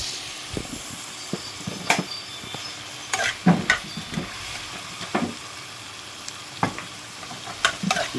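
Pork and potato gravy sizzling in a pot while it is stirred, with scattered scrapes and knocks of the stirring utensil against the pot.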